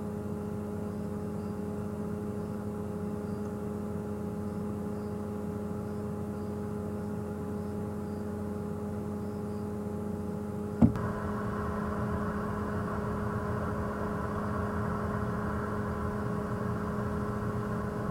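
Safari game-drive vehicle's engine running steadily. About eleven seconds in there is a sharp click, and the engine note then gets louder and fuller as the vehicle pulls away.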